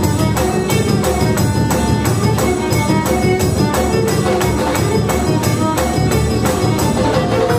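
Klezmer tune played live by a trio: violin carrying the melody over plucked upright double bass and a drum kit keeping a fast, even beat.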